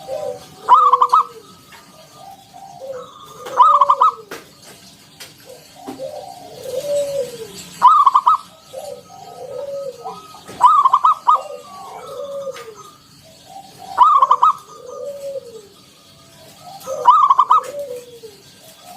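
Zebra dove (local perkutut) singing its cooing song, six phrases about three seconds apart, each a run of soft arched coos with a louder rapid note.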